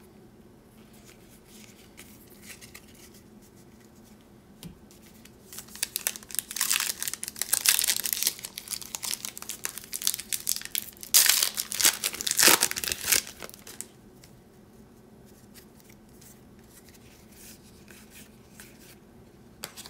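A foil trading-card pack wrapper being torn open and crinkled by hand: a run of crackling rips and crinkles starting about six seconds in and ending around thirteen seconds.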